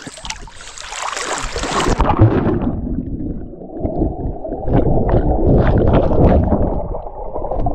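Water splashing from a person swimming, then about two seconds in the microphone goes underwater: muffled churning and bubbling from the swimming strokes.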